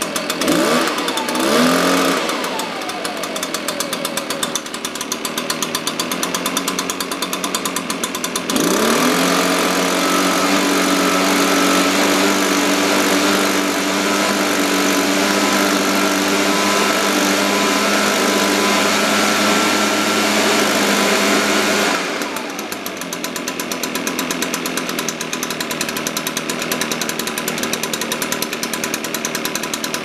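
Echo PB-580T backpack leaf blower's two-stroke engine idling, blipped up and back about a second in, then held at high throttle with the rush of air from the fan for about thirteen seconds before dropping back to idle. The idle is a little low and the engine is due a carburettor tune-up.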